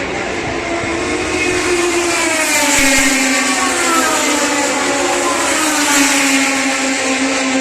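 Historic Formula 1 racing car engines running at high revs, several engine notes rising and falling as the cars accelerate, change gear and pass by.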